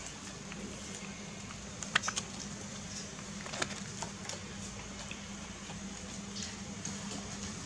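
Scattered light clicks and taps, the loudest about two seconds in, as a small monkey clambers about a hanging rattan chair and its metal stand, over a steady low hum.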